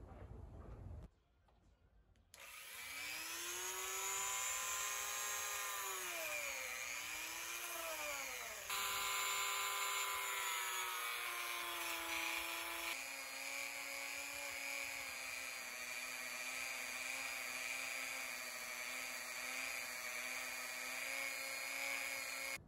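Handheld rotary tool spinning a felt buffing wheel against an aluminium dog tag to polish it: a high, steady motor whine that starts about two seconds in. Its pitch sags and recovers for a moment as the wheel is pressed into the metal, steps down twice, and runs lower and steadier in the second half.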